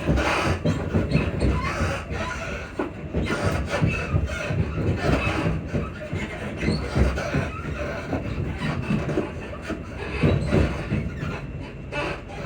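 Class 334 electric multiple unit in motion, heard from on board: a continuous running rumble with irregular squeaks and creaks from the suspension.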